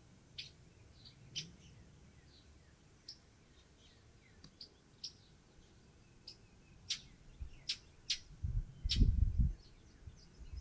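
Northern mockingbird giving short, sharp chirping notes, spaced apart at first and coming more often after about six seconds. Near the end, low irregular rumbling thumps set in and become the loudest sound.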